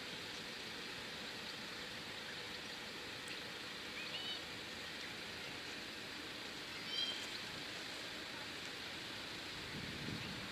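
Steady outdoor background hiss with short bird chirps about four and seven seconds in, and a low rumble setting in near the end.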